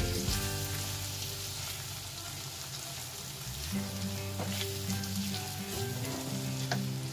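Onion, red chilli and ginger-garlic masala paste sizzling in hot oil in a non-stick kadai as it is fried, stirred with a silicone spatula, with a few short knocks of the spatula.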